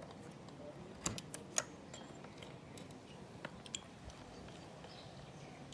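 A few quiet, sharp clicks and taps of computer parts being handled during disassembly: three about a second in, then two more a little past the middle.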